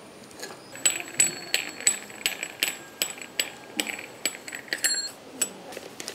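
Brass chakli press being screwed together: a run of light metallic clinks with a bright ring, about three a second, stopping about five seconds in.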